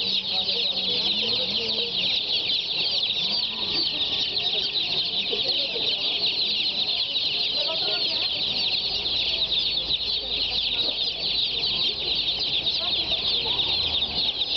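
A box crowded with domestic chicks peeping all at once: a dense, continuous chorus of high-pitched cheeps that never lets up.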